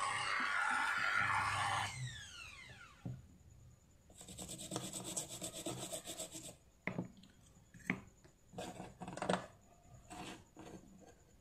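Small electric drill running at a steady pitch, switched off about two seconds in and winding down with a falling whine. A few seconds of rhythmic scraping follow, then several short scratches as the tool works over the chip on the circuit board.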